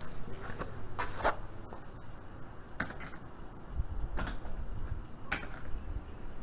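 A few scattered knocks and scuffs: footsteps on a concrete floor and the metal handle of a steel utility cart being taken hold of, with a low rumble in the second half.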